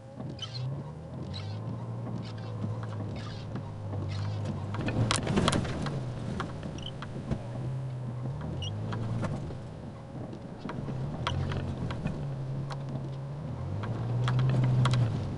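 Toyota FJ Cruiser's 4.0-litre V6 heard from inside the cabin while driving a rough, muddy track, the engine note stepping up and down with the throttle. Knocks and rattles from the body over the bumps, with a louder rush of noise about five seconds in.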